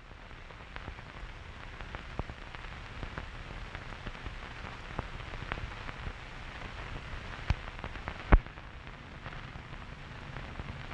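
Steady soft crackling hiss with irregular clicks scattered through it, and two sharper pops a little under a second apart, about eight seconds in.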